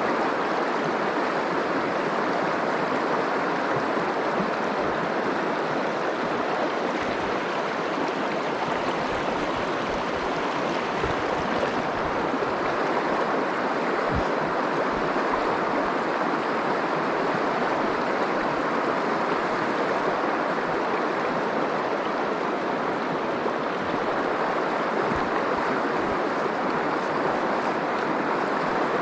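River water rushing past, a steady even rush with no change throughout.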